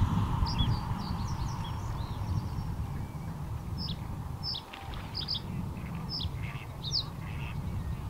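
Male reed bunting singing: short, high chirping notes in small groups every second or so, over a steady low rumble.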